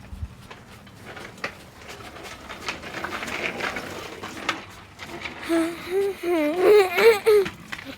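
A young child's wordless voice, whining and wailing with a wavering pitch, for about two seconds in the second half. Before it there are scattered light knocks and clicks.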